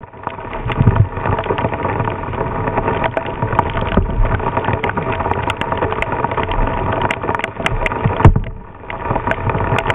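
Strong gusty wind buffeting the microphone in a squall, with deep rumbling surges about a second in, around four seconds and near eight seconds, and many sharp ticks throughout.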